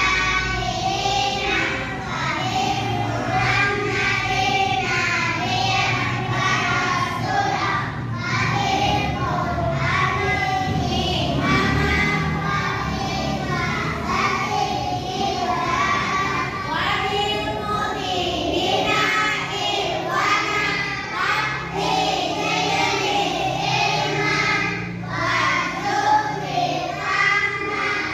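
Young children singing a song together in sustained phrases.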